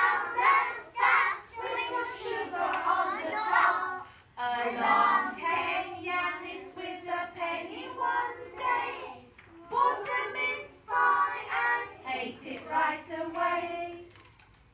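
A group of young children singing together, in phrases with short breaks, stopping just before the end.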